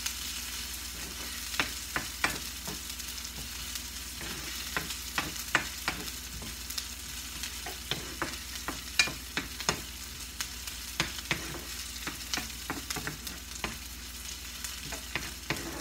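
Garlic and onion sizzling in oil in a frying pan, with a utensil clicking and scraping against the pan at irregular moments as it is stirred.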